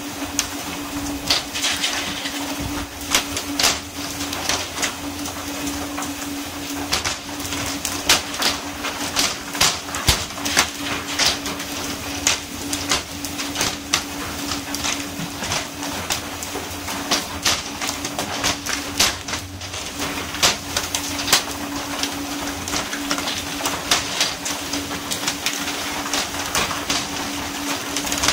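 Skipjack tuna being jerked aboard on poles and slapping onto the deck of a pole-and-line fishing boat: many irregular sharp smacks and flapping. Under them runs a steady hiss of water spray along the hull and a constant hum from the boat's engine.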